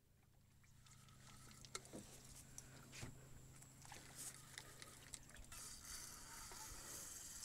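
Near silence: a faint low hum with scattered small clicks and knocks, and a hiss that comes in about five seconds in.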